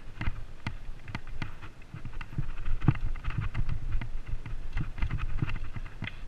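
Mountain bike clattering and rattling over rocky dirt singletrack, with irregular sharp knocks from the frame and wheels over the rocks and a steady low wind rumble on the helmet-mounted microphone.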